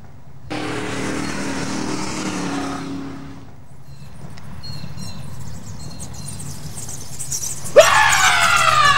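A vehicle passes for a few seconds. Then, near the end, a cat lets out a loud, drawn-out yowl that falls in pitch.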